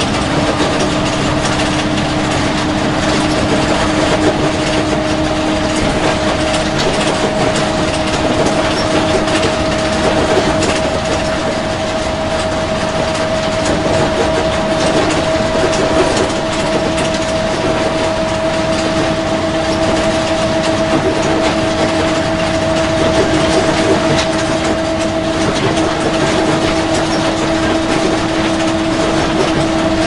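School bus driving: a steady noise with a steady whine running over it and many small rattling clicks.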